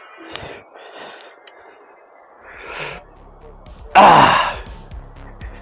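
A person breathing out audibly, ending in a loud sigh about four seconds in whose pitch falls away.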